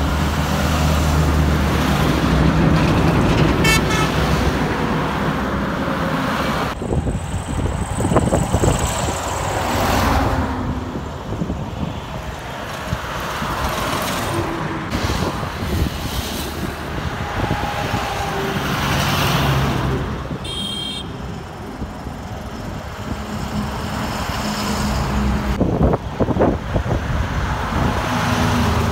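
Heavy diesel trucks and lorries driving past one after another on a highway, engines running and tyres droning, the sound swelling and fading with each pass. A short horn toot sounds about twenty seconds in.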